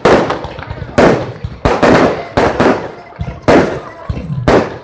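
Firecrackers going off in a quick, irregular series of about eight loud, sharp bangs, each fading off briefly after the crack.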